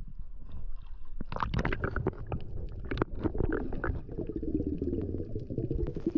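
Muffled water sounds picked up by a camera in its underwater housing: a steady low rumble, with a run of knocks, crackles and bubbling starting about a second in.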